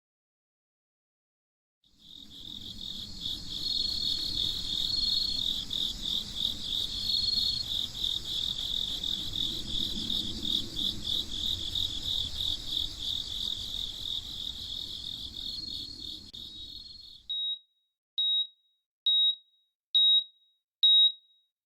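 After a short silence, crickets chirp in a dense, pulsing chorus over a low ambient rumble, cutting off about seventeen seconds in. Then come short high beeps, evenly spaced, a little under one a second.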